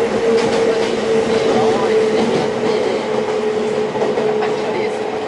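Interior running noise of a Kobe Electric Railway 5000 series electric train with Mitsubishi GTO inverter drive: a steady humming tone over the rumble and clatter of the wheels on the track.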